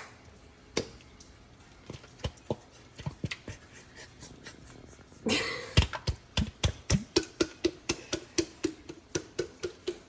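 Utensil knocking and scraping against a jar and pot as mayonnaise is scooped into the mixture. Scattered knocks come first, then a short scrape about five seconds in, then steady taps about three a second.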